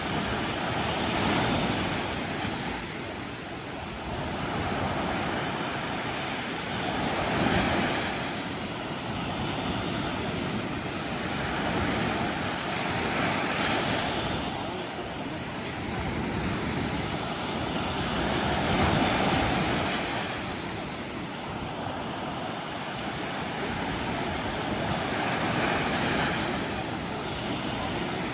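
Sea waves, the surf swelling and falling back in slow surges about every six seconds.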